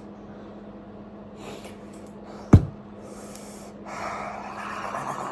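A single sharp thump about two and a half seconds in, then a long breathy exhale-like rush of air near the end, over a steady low electrical hum.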